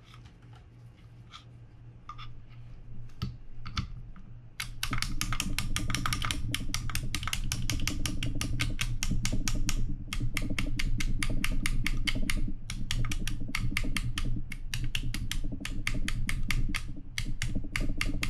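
Rapid, even metallic clicking, about six or seven clicks a second, starting about four and a half seconds in, as a stuck anti-reverse part inside a Daiwa BG90 spinning reel is worked back and forth by hand. The part is held tight by dried-up grease. Before the clicking there are only a few soft handling clicks.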